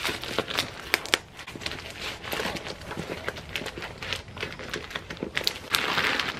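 Plastic poly mailer bag crinkling and crackling as it is pulled and torn open by hand, louder near the end.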